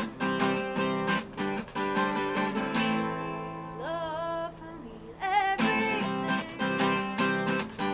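A woman singing to her own strummed acoustic guitar, with a held, wavering sung note about halfway through.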